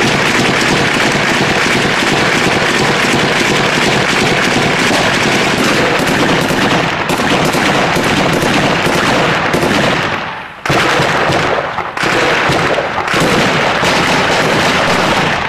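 Sustained automatic rifle fire in close combat, many shots overlapping into a near-continuous crackle, with a brief lull about ten seconds in.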